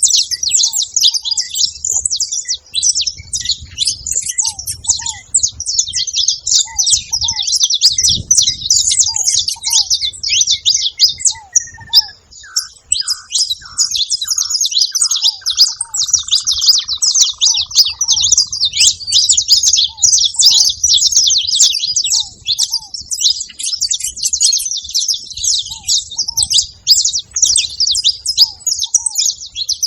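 A group of saffron finches chirping and chattering in a dense, nearly unbroken high-pitched stream. Short, lower, down-slurred notes from another bird repeat through it, and a falling, stuttering whistle passes about halfway through.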